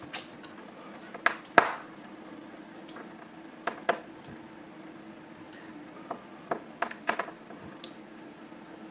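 Small, sharp clicks and taps of a T7 Torx screwdriver and fingers against the hinge screws and aluminium case of a 13-inch unibody MacBook Pro, as the LCD assembly's screws are loosened. There are about nine scattered clicks, the loudest about one and a half seconds in, over a faint steady hum.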